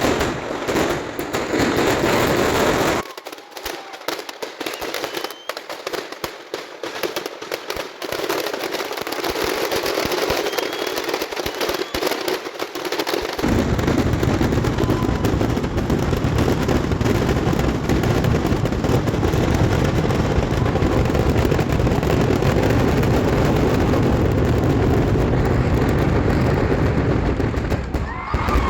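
Fireworks display going off in a dense barrage of rapid, overlapping bangs and crackling. About three seconds in the deep booms fall away and it thins to lighter crackling. About ten seconds later it builds into a continuous heavy rumble of close-packed explosions.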